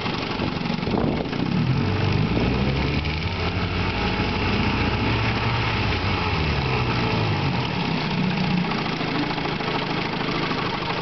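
1956 Johnson 7.5 hp two-cylinder two-stroke outboard motor running in reverse gear. The revs rise about a second in, waver, and settle back down about seven seconds in.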